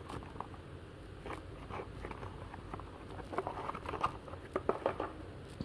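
Faint rustling and small clicks of a folded paper flyer being handled and opened.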